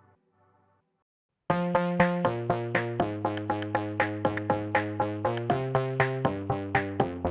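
Electronic background music. It starts suddenly after a second and a half of near silence, with synthesizer notes plucked in a steady pulse over held bass notes that change pitch every second or so.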